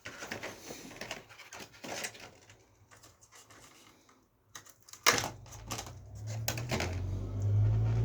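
A 32 GB RAM stick being handled and pressed into its motherboard slot: light plastic rustling and small clicks, then a sharp click about five seconds in as it seats, with a few more clicks after. A low rumble builds after the click and is loudest near the end.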